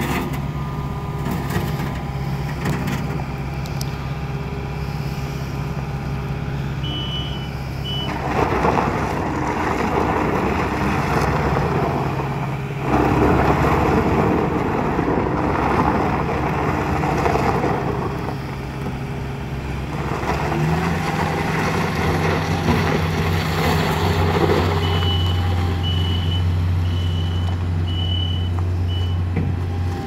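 Kubota SSV75 skid steer's four-cylinder diesel engine running as the loader drives and turns, its engine speed changing a few times, with a louder rushing noise through the middle. A backup alarm beeps briefly about a quarter of the way in and again about once a second near the end.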